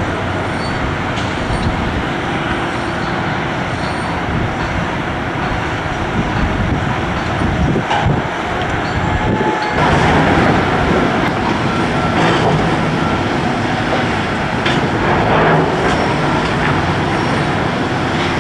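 Heavy construction machinery running steadily: a crawler-mounted rotary drilling rig's diesel engine and hydraulics, with a few short metallic knocks in the second half.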